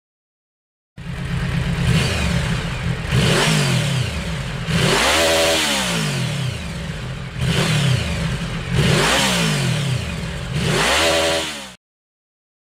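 Yamaha V-MAX 1700's V4 engine through its stock exhaust, revved about six times, each time the pitch rising quickly and falling back. It starts about a second in and cuts off suddenly near the end.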